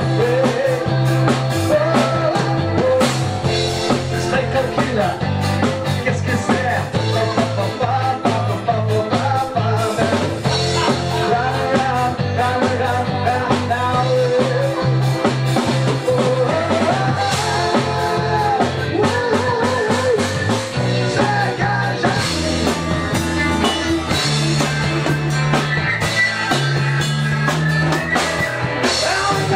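Rock band playing, with a singer over electric guitar, a bass line that moves in steady held notes, and a drum kit.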